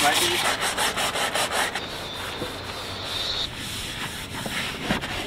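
A cloth scrubbing the hull of an inflatable dinghy in quick back-and-forth strokes, about five a second, wiping off marine growth. The strokes ease off about two seconds in.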